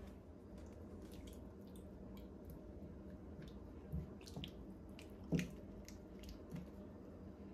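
Octopus stew sauce simmering in a pan with small wet pops, stirred with a wooden spoon that squishes through it and knocks softly against the pan twice, about four and five and a half seconds in. A faint steady hum runs underneath.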